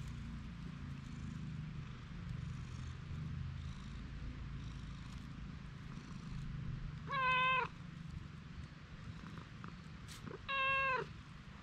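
An orange-and-white cat meowing twice, about seven seconds in and again near the end, each a short call over a steady low background hum.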